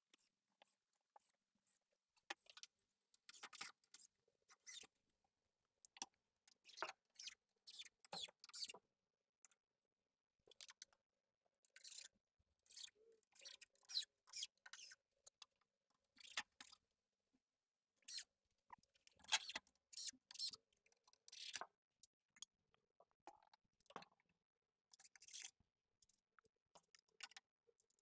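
Faint, scattered clicks, knocks and scrapes of hands handling multiplex plywood panels and battens while they are fitted to the wall, in irregular clusters with short silent gaps.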